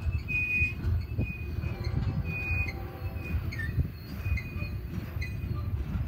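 Double-stack intermodal container train's well cars rolling past on the rails with a steady low rumble of wheels. A few brief high-pitched wheel squeals come mostly in the first half.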